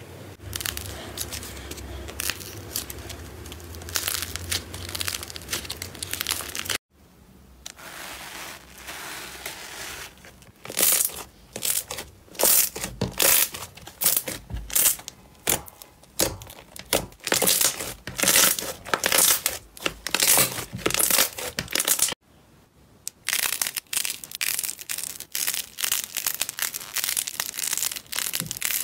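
Slime and a foam squishy squeezed by hand, in three clips with abrupt cuts about 7 s and 22 s in. The first clip is soft squeezing over a low hum. Then a lump of thick glossy slime is pressed and kneaded with a long run of loud sticky crackles and pops. Near the end, puffy clay-like slime balls are squeezed with quicker crackling.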